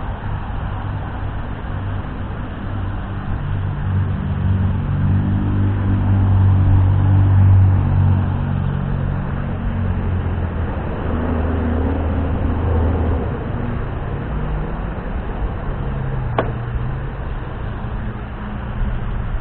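A motor vehicle's engine passing, growing louder for several seconds and then fading away, over a steady low rumble. A single sharp click comes about three seconds before the end.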